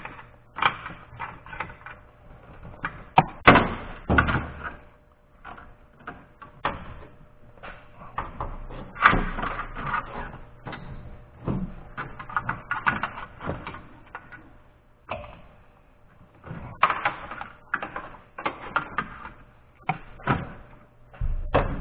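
Irregular clicks, knocks and rattles of hands and tools working on parts in a diesel truck's engine bay, as a hose or tube is worked loose and lifted out. The louder knocks come in clusters about three seconds in, about nine seconds in and again near seventeen seconds.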